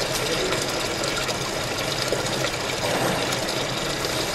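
Engine coolant pouring in a thin, steady stream from an open radiator drain valve into a plastic drain pan, a continuous splashing.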